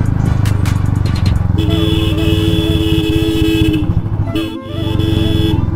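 Royal Enfield motorcycle's single-cylinder engine running on the move, with a two-tone vehicle horn held for about two seconds, then sounded again for about a second.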